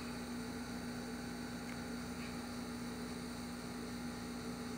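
Steady electrical hum with a light hiss, a constant low tone with no change and no distinct events.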